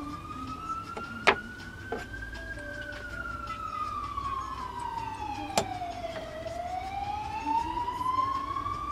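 Emergency vehicle siren wailing: one tone rises for about two and a half seconds, falls slowly over nearly four seconds, then rises again. Two sharp clicks from items handled on a workbench cut through it, the louder about a second in and another past the middle.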